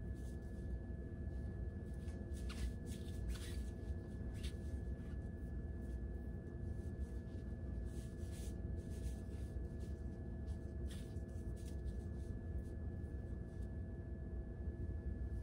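Faint, intermittent rustling of long hair being handled as a braid is pulled and loosened, several soft bursts, over a steady low room hum.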